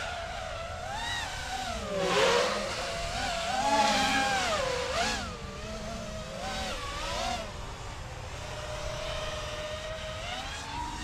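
FPV quadcopter's brushless motors and propellers whining in flight, the pitch rising and falling with the throttle. There are louder surges about two and four seconds in, a steadier tone later, and a rise near the end.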